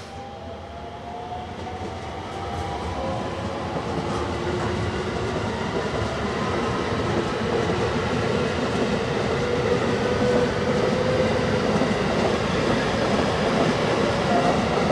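Electric commuter train pulling away, its traction motors whining up in pitch over the first few seconds while the rumble of wheels on rail grows louder as it gathers speed.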